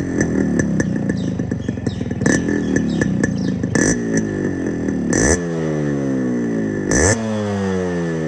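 Yamaha RX100's two-stroke single-cylinder engine running unevenly with sharp cracks, then blipped twice, about five and seven seconds in, the revs falling away after each blip.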